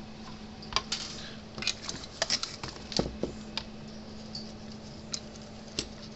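Irregular light clicks and clatter of small tools and parts being moved about on a workbench, thickest in the first half, over a steady low hum.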